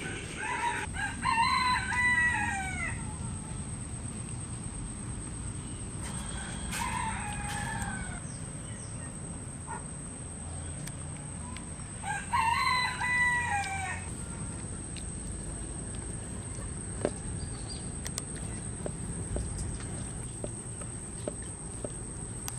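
A rooster crowing three times, each crow about two seconds long and falling away at the end. The second crow is fainter than the other two.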